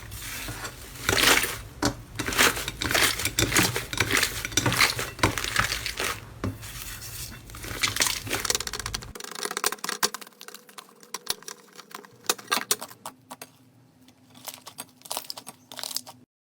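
Slime being squeezed and worked by hand close to the microphone, with a run of quick crackles and squishes. It gets quieter and sparser about nine seconds in, then cuts off suddenly near the end.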